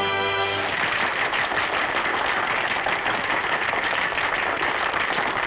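A singer's held final note over the band's last chord ends about half a second in, then the audience breaks into steady applause.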